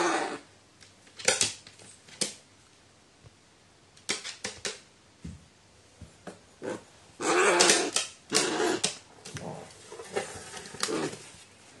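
A pet crow giving short, rasping calls in a series, the longest and loudest a little past the middle, with sharp taps in between.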